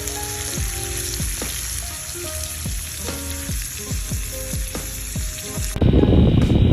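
Food sizzling and frying in a pan on a small camp stove, a steady high hiss, with light plucked background-music notes over it. Almost six seconds in, it cuts suddenly to a louder, steady rush of noise.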